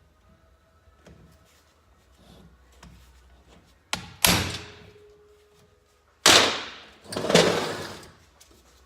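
Hammer striking a hand impact driver set in a stuck Phillips screw, about three or four heavy blows, each ringing briefly, to break the screw loose.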